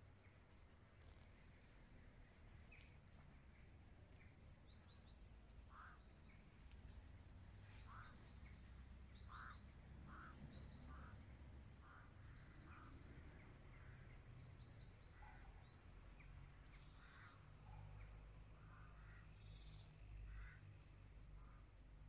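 Small songbirds chirping faintly in the trees: many short, scattered calls throughout, over a low steady rumble.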